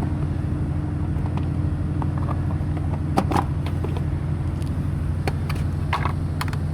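Air conditioner outdoor unit running with a steady low hum while its suction and liquid lines are frozen over. A few short metallic clicks and taps come in the second half, from the unit's panel and screw being handled.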